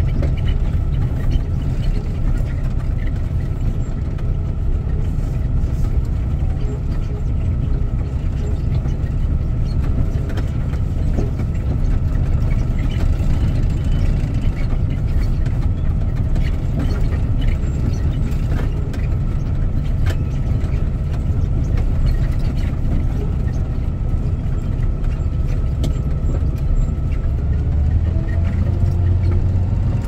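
Heavy concrete truck's diesel engine running steadily as it drives over a dirt road, heard from inside the cab as a constant low rumble. The engine note grows deeper and stronger near the end.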